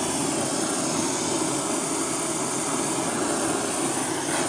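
Large gas blowtorch burning steadily with a loud, even rushing flame, heating a big silver piece for soldering.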